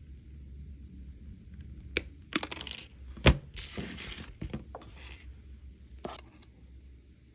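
Wire cutters snipping silver-plated copper wire: a few sharp clicks, the loudest about three seconds in. Scratchy rustling and light clinks of the cut wire ends being handled follow.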